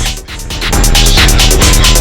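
Phonk music track: a sparser section gives way, about two-thirds of a second in, to the full beat with deep bass and rapid, even ticking high up.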